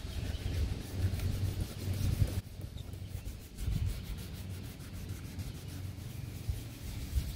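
A cloth rubbed back and forth by hand over an oxidized plastic headlight lens to restore its clarity, a continuous scuffing that eases off for about a second around two and a half seconds in.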